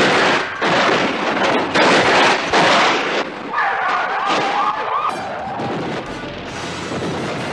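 Loud crashing and scraping of a car rolling over, with repeated sharp impacts for about three seconds. Then a police siren wails briefly, followed by a steady rushing noise.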